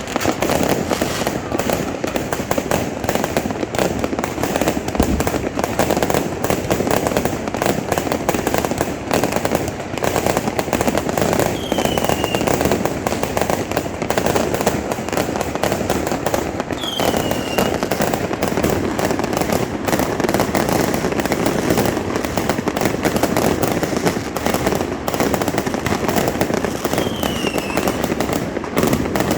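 Fireworks and firecrackers going off in a dense, continuous crackle, with a few short falling whistles scattered through.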